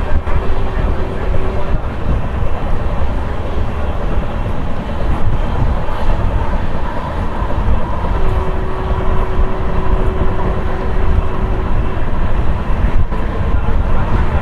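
Electric locomotive-hauled passenger train running on the rails: a steady heavy rumble, with a faint steady whine coming in at the start and again for a few seconds past the middle.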